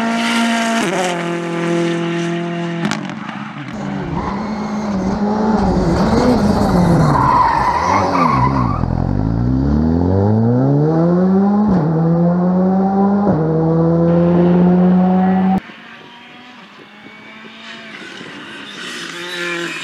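Rally car engine at full throttle, changing gear, then falling in pitch as the car brakes hard for a corner with a brief hiss of tyre noise. It then accelerates hard again through two upshifts. About fifteen seconds in, the sound cuts suddenly to a quieter stretch where another engine builds in level near the end.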